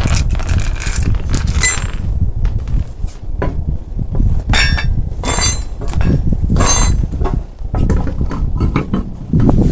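Metal tools or parts clinking and knocking during a tyre change, with a handful of sharp ringing clinks over a steady low rumble.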